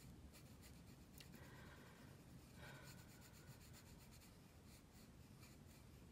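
Faint scratching of a Derwent Inktense coloured pencil on coloring-book paper, in short repeated strokes.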